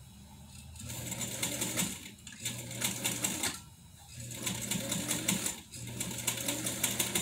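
A 1957 Atlas straight-stitch sewing machine sewing a seam in four short runs of rapid stitching, with brief pauses between them. The stitching starts about a second in.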